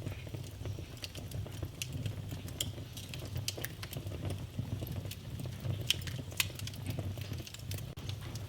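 Wood fire in a fireplace crackling, with irregular sharp pops over a steady low rumble of flames. A couple of louder pops come about six seconds in.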